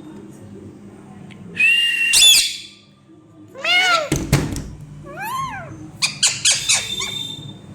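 Pet parrot calling: a loud, held whistle about two seconds in, then several short calls that rise and fall in pitch. A thump comes about four seconds in, and a quick run of sharp clicks near the end.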